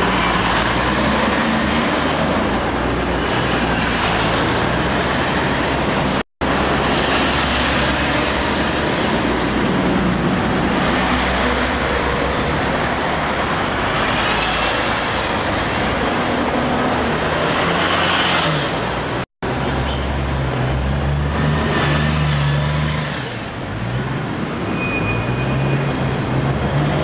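Busy street traffic with buses passing close by, their engines running over steady road noise. The low engine drone is strongest in the second half. The sound cuts out completely for an instant twice, about six seconds in and about nineteen seconds in.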